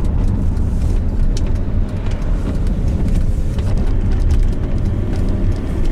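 Car driving along a road: steady low engine and tyre rumble from inside the cabin.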